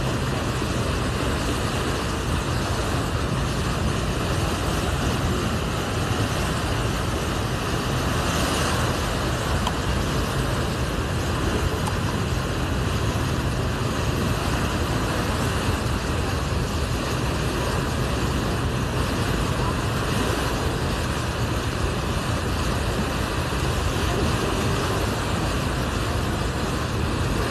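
Steady low rumble and hiss of a tour boat under way, heard from its open deck, with wind on the microphone.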